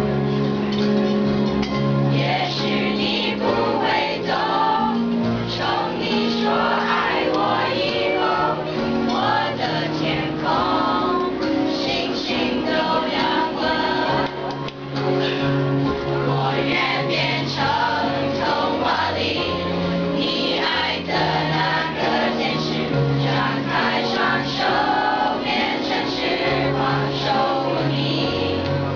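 A group of students singing a Mandarin pop ballad together in chorus, with instrumental accompaniment underneath.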